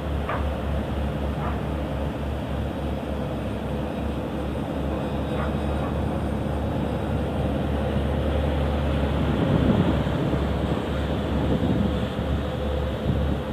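Steady low drone of a work boat's diesel engine as it pushes a barge upstream, over a wash of churning wake water. The rumble swells briefly about ten seconds in.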